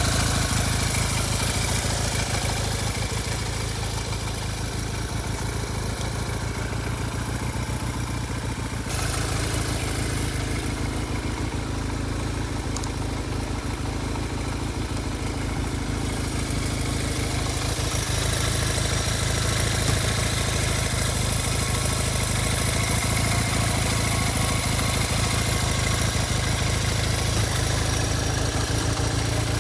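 1971 Honda SL175's parallel-twin four-stroke engine idling steadily, with abrupt shifts in tone about 9 and 16 seconds in where takes are cut together.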